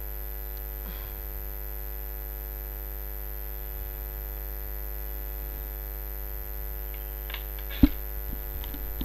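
Steady electrical mains hum with a stack of overtones in the recording. A single sharp knock comes just before the end and is the loudest moment.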